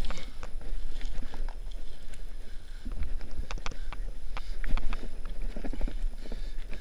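Feet and hands scrambling up a loose, dry dirt bank: irregular scrapes, crunches and knocks heard up close on a body-worn camera, over a steady low rumble of wind and handling noise.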